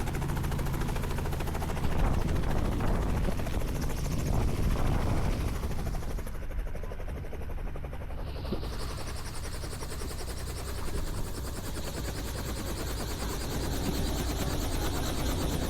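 Helicopter running close by: a steady, fast rotor-blade chop over a deep engine and turbine noise. The higher hiss drops out for a couple of seconds about six seconds in.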